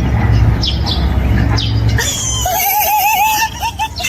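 Short falling bird chirps over a low rumble. About two seconds in comes a different animal call, pitched and wavering in quick regular wobbles, which trails off near the end.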